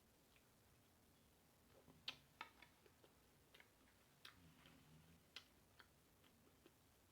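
Faint, irregular wet clicks and smacks of a person chewing food with mouth smacking, starting about two seconds in.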